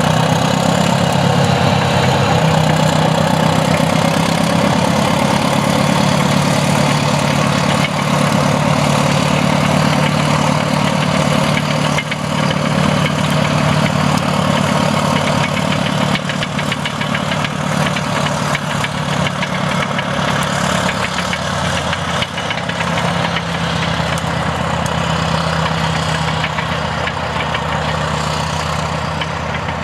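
Heavy Caterpillar diesel earthmoving machinery running steadily and loudly as a D7E bulldozer and DW20 scraper work dirt, the engine note shifting slightly now and then.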